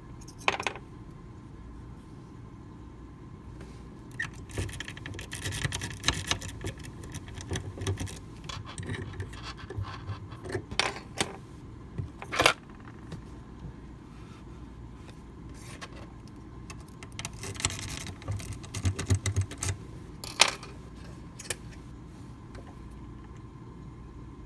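Small metal lock-picking tools clicking and scraping against a Medeco mortise lock cylinder held in a vise, as a tension wrench and pick are set into the keyway. The clicks come in scattered clusters, the sharpest about halfway through and another about twenty seconds in.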